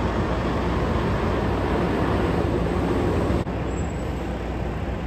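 A semi-truck's diesel engine runs steadily as the tractor-trailer backs into a loading dock. The sound drops suddenly about three and a half seconds in.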